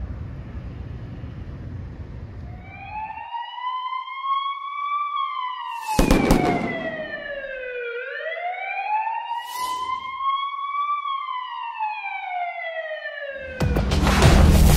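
Police siren sound effect in a slow wail: two long rising-and-falling sweeps, with a whoosh in each. Before it there is a low street and traffic rumble, and near the end loud music with a boom cuts in.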